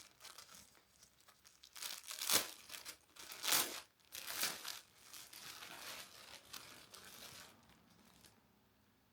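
Packaging of a clothing order crinkling and tearing as it is handled and opened, in uneven rustling bursts with the loudest about two and three and a half seconds in, dying away near the end.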